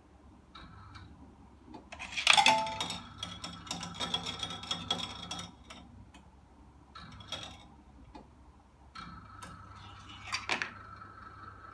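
Cashmax Procoin CMX30 coin counting machine at work: a dense run of coins clinking and clattering through it starting about two seconds in and lasting some three seconds, with a steady hum and scattered clicks before and after.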